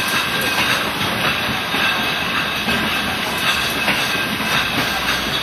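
Wine bottling line running: conveyor and machinery in a steady clatter, with frequent short clicks and clinks of glass bottles.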